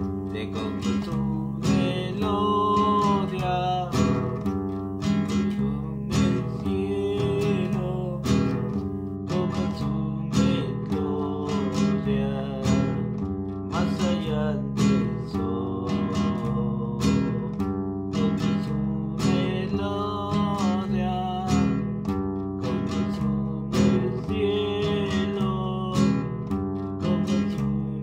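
Acoustic guitar strummed in a steady rhythm, moving through a simple chord progression.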